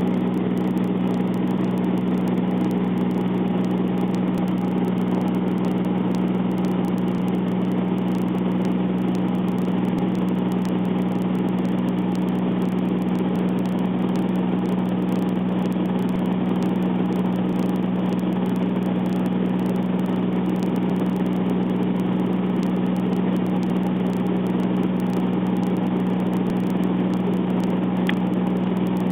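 Light propeller aircraft's engine and propeller droning steadily at cruise, one even unchanging pitch.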